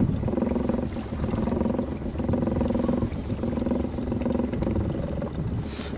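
Boat's outboard motor running steadily with a low, even drone, the level dipping slightly a few times.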